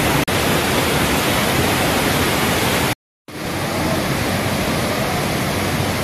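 Loud, steady rush of a hillside waterfall and stream in full spate, swollen with a lot of water. The sound drops out into silence for a moment about three seconds in, then resumes.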